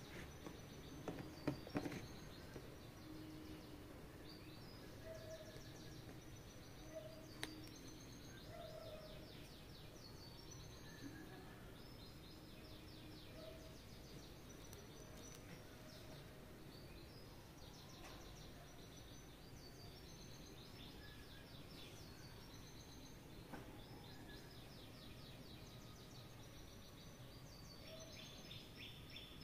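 Faint birdsong: several birds chirping and trilling throughout, with a few light clicks in the first two seconds and one more about seven seconds in.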